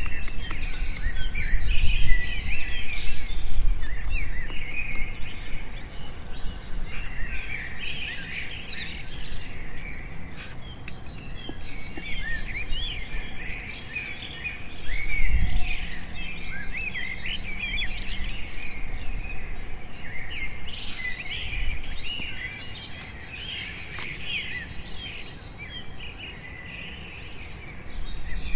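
Many small birds chirping and calling throughout. In the first few seconds a machete knocks against a length of bamboo on a log, and there is a single low thump about halfway through.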